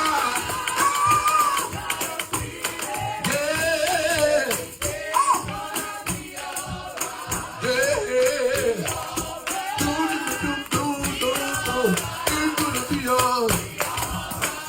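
Gospel music: voices holding and bending long sung notes, with a tambourine shaking along with the beat.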